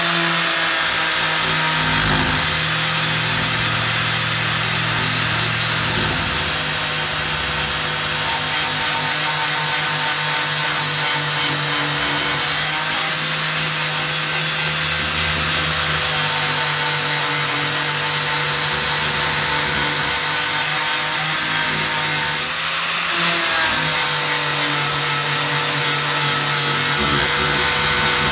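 Angle grinder running steadily with a high whine, its disc grinding down the weld bead on an alloy aircraft fairing. The motor sags once briefly about three quarters of the way through.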